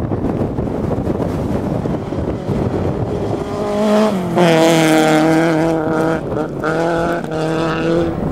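Volkswagen Golf Mk1 rally car on a gravel stage: a rough rushing noise as it approaches, then its four-cylinder engine note comes in loudly about three and a half seconds in, drops in pitch as the car passes close by, and stays at high revs, with a couple of short breaks, as it drives away.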